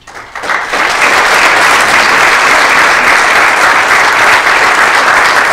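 Lecture-theatre audience applauding: the clapping builds up over the first second, then holds loud and steady.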